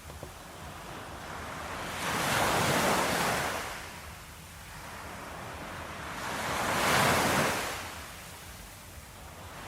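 Sea waves breaking and washing up the shore, surging twice about four to five seconds apart and ebbing between.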